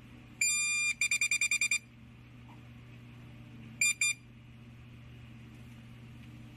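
Electronic beeper of a CM-BA100 barcode verifier as it scans a setting command code: one long high beep, then a quick run of about eight short beeps, and two short beeps about four seconds in.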